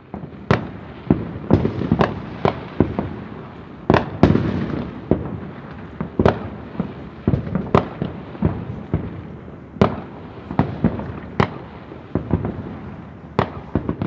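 Fireworks going off: sharp bangs about every second, at irregular spacing, over a constant rumble and crackle, stopping abruptly at the end.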